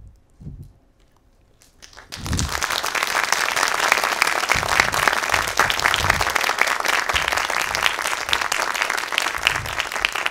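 Audience applauding: many hands clapping together, breaking out about two seconds in after a brief quiet and carrying on steadily.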